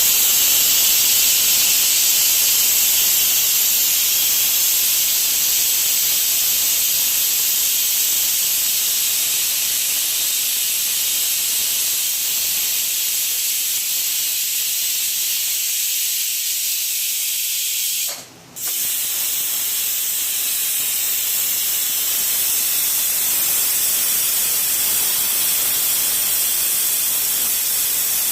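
Pressure cooker venting steam through its whistle valve in a steady, high hiss. The hiss breaks off for about half a second roughly two-thirds of the way through, then carries on.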